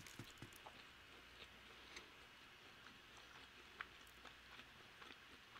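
Near silence, with a few faint, sparse mouth clicks from quiet, closed-mouth chewing of fried chicken.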